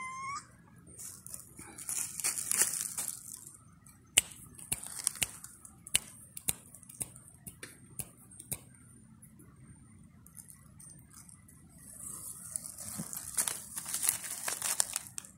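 Dry leaf litter rustling and crackling as a cat digs and noses through it, in two longer bursts with scattered crackles and snaps between.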